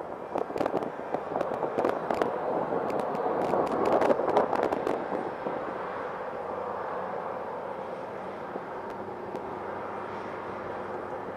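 Boeing 737-800's CFM56-7B jet engines at high thrust, the jet blast crackling and rumbling loudest about four seconds in, then settling into a steadier roar with a held whine.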